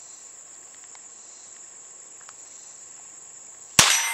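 Crickets chirring steadily, then near the end a single shot from a Henry Mare's Leg .22 LR lever-action pistol, with a ringing tail as the steel target is hit.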